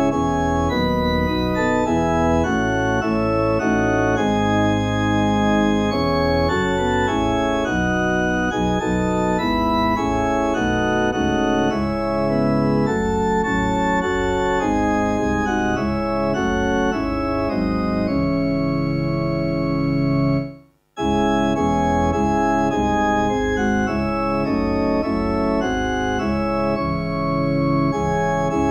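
Organ playing a hymn tune in steady sustained chords. The sound cuts out for a split second about two-thirds of the way through.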